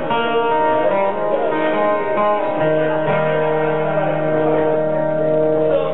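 Amplified acoustic guitar played solo with ringing, held chords; a low note comes in about two and a half seconds in and sustains.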